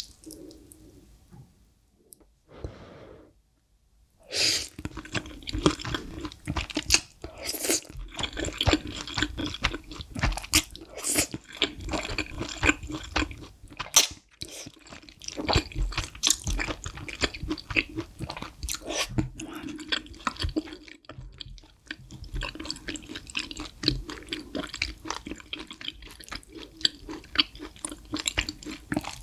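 Close-miked eating sounds of spicy Buldak stir-fried instant noodles being slurped and chewed, beginning about four seconds in. The noodles are a dense run of wet smacks and clicks, with a few sharp, loud slurps.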